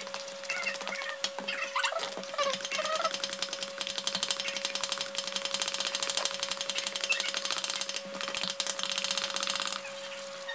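A handheld vegetable peeler scraping in quick strokes down raw zucchini and yellow squash, shaving off long strips of skin with a dense, rasping sound that runs most of the time. A steady hum sits underneath.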